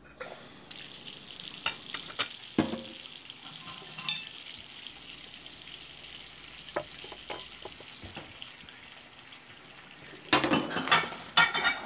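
Kitchen tap running into a sink, a steady hiss that starts abruptly just under a second in, with scattered light clinks of dishes. Near the end comes a louder clatter.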